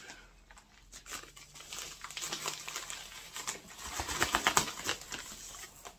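A coffee bag being handled: crinkling and rustling in uneven bursts, busiest about four seconds in.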